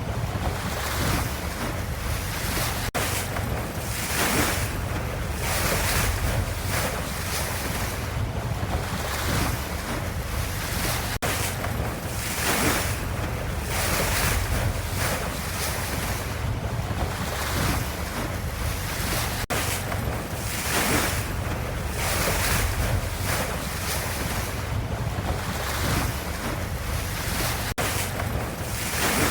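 Ocean waves washing in steadily over a low rumble, the sound swelling and easing every second or two.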